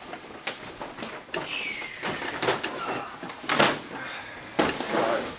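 Large paper shopping bags rustling and bumping as they are carried past, with a string of short knocks and crinkles and a brief falling squeak about a second and a half in.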